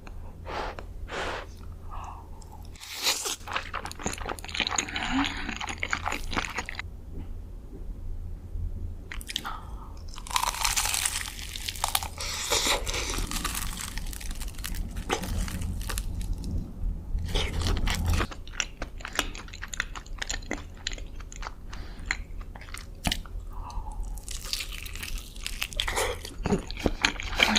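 Close-miked crunching, biting and chewing of crisp food, in bursts of crackling with short pauses between bites.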